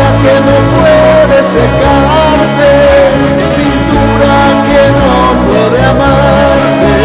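Music: a song's instrumental passage, with a gliding lead melody over steady bass and accompaniment.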